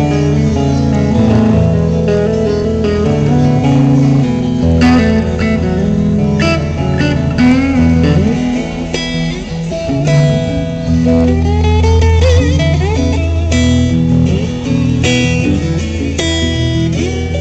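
Live band instrumental: an electric guitar plays a lead line with bent notes over strummed guitar and a steady low accompaniment.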